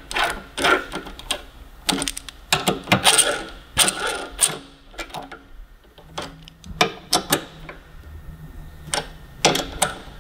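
Hand ratchet clicking in short irregular runs as the fuel tank's 10 mm hex-head rear mounting bolts are run in and tightened.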